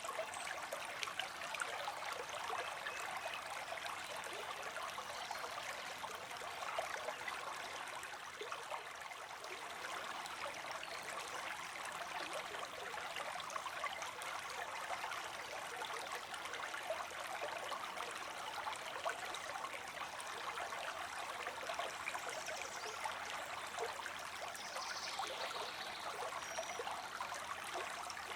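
Creek water streaming steadily, a continuous trickling and splashing flow.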